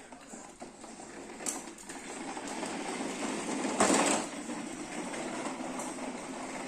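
A small motor running steadily with rattling, and a louder rushing burst about four seconds in.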